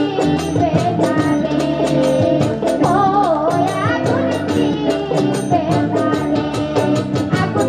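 Live Bengali baul folk song: a woman singing into a microphone over a band, with a steady percussion beat running under the melody.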